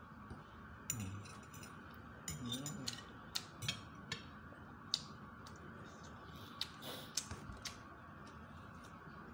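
Metal spoon and fork clinking and scraping on a ceramic plate while eating, in scattered light clicks. A short murmur of voice comes about a second in and again near three seconds.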